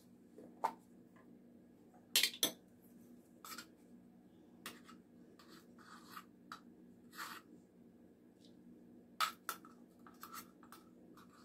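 Plastic lid prised off a can of baking powder with a pair of sharp clicks about two seconds in, then a measuring spoon scraping in the powder and tapping as it is filled and levelled, with another pair of clicks near the end.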